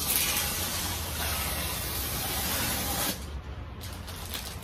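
Packing tape being peeled off a cardboard shipping box in one long pull, a steady rasping hiss that cuts off abruptly about three seconds in.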